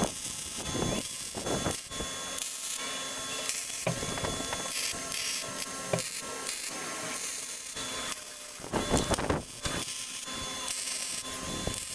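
Irregular scraping and rubbing strokes of metalwork on steel, coming in uneven bursts.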